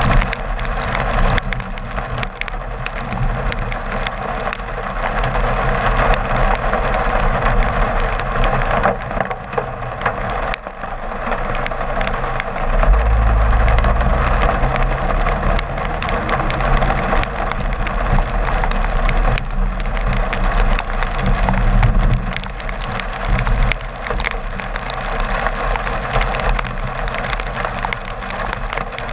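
A car driving on a rain-soaked road in heavy rain: a steady hiss of tyres and spray over a low road rumble, with many sharp clicks of raindrops striking the camera. The low rumble swells for a couple of seconds about halfway through.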